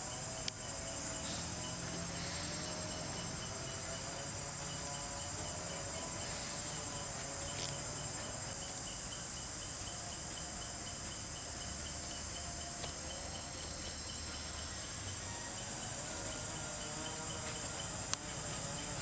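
Steady, high-pitched insect buzz, with a second insect's regularly repeating chirp pulse sounding beneath it for much of the middle.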